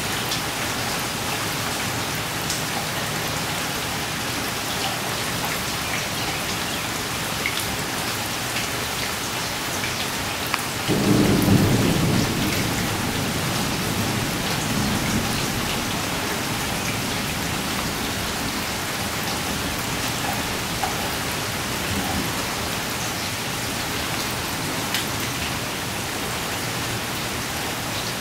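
Heavy rain falling steadily, with a thunderclap about eleven seconds in whose low rumble is loudest at the start and fades over a few seconds.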